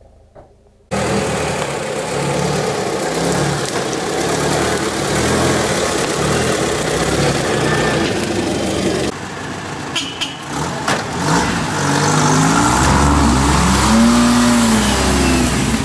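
Off-road 4x4 engines working hard in low gear through forest brush. The sound changes abruptly about nine seconds in, and near the end an engine revs up and down repeatedly, as when a stuck vehicle is being towed out on a strap.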